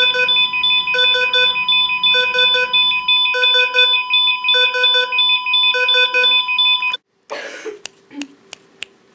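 Electronic beeping: steady high tones under a short burst of rapid beeps that repeats about every second and a quarter, cutting off suddenly about seven seconds in. A few faint clicks follow.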